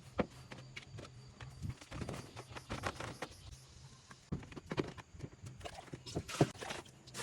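Irregular knocks, taps and scraping of food being prepared by hand, a few sharper knocks standing out in the second half.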